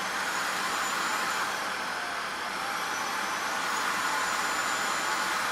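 Cordless stick vacuum cleaner running steadily, its motor's high whine dropping about a second and a half in and climbing back about two seconds later as the suction setting is changed.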